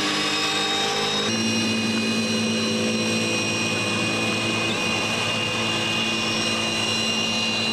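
Milwaukee Super Hawg right-angle drill running steadily in first gear under load, driving a boat's propeller: a steady motor whine that steps up in pitch about a second in and then holds.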